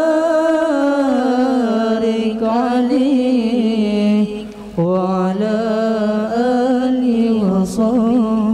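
Young male voices singing an Arabic sholawat, a devotional song in praise of the Prophet, without accompaniment, in long held melismatic notes with wavering ornaments. There is a brief pause for breath a little past the middle.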